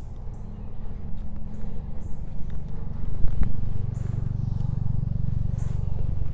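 Convex-ground Jeff White bush knife shaving curls off a dry, seasoned maple stick: a short scraping hiss with each stroke, several strokes about a second apart. A steady low rumble runs underneath and is the loudest sound.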